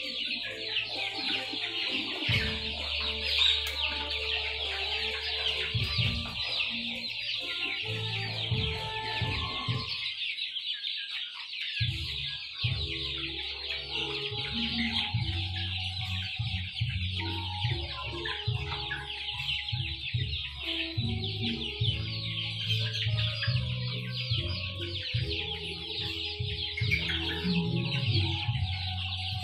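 A flock of young chickens feeding together: a constant dense chorus of high-pitched peeping and clucking from many birds at once, over a low steady hum that drops out for about two seconds near the middle.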